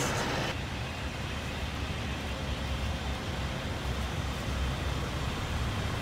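Steady low rumble of idling vehicle engines in stalled traffic, a tractor-trailer among them.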